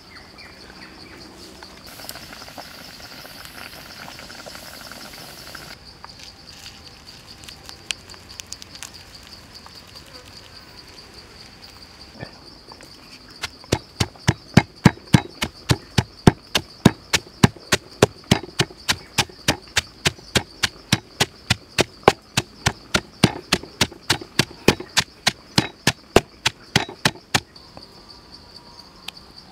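Wooden pestle pounding in a wooden mortar, crushing sugar and chilies into a paste: a long run of sharp, even knocks, about three a second, starting about halfway through and stopping shortly before the end. A steady high drone of insects runs underneath.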